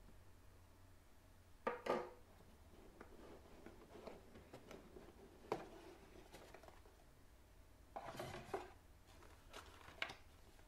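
Cardboard packaging being handled: a cardboard insert tray lifted out of a box, with scraping rubs and light knocks, the loudest about two seconds in and around eight seconds in.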